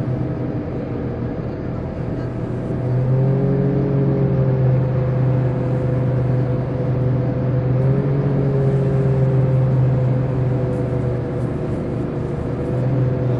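Passenger hovercraft running at speed on its engines and twin ducted propellers: a steady low hum with a higher whine above it, wavering slightly in pitch. It grows louder a few seconds in and eases a little near the end.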